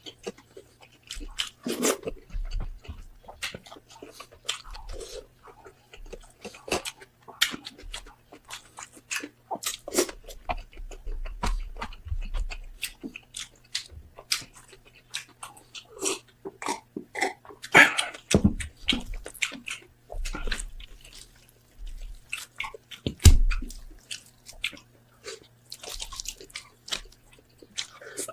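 A person chewing and biting roasted pork head close to the microphone, with irregular crunches and mouth clicks. Two louder bites stand out, one a little past the middle and one later on.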